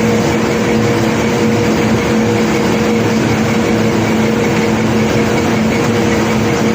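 Heavy cargo-unloading machinery running steadily: a constant drone over an even rushing noise.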